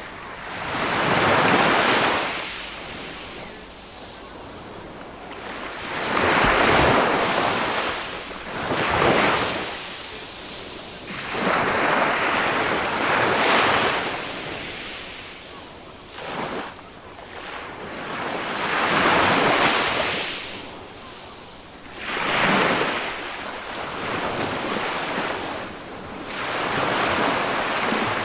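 Small waves of a calm Mediterranean sea breaking and washing up the beach. Each one is a rushing hiss that swells and fades, coming every few seconds.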